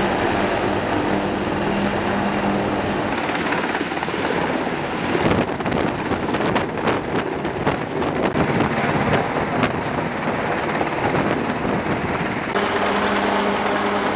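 Military helicopters running: a steady rotor and turbine drone, with a rougher, uneven stretch of rotor beating and gusty noise in the middle.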